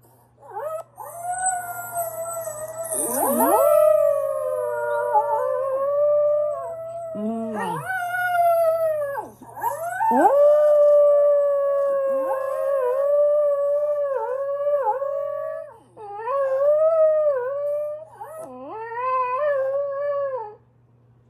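Small curly-coated dog howling in long, wavering howls along with its own recorded howling played back from a tablet, the two howls overlapping at times. The howling stops near the end.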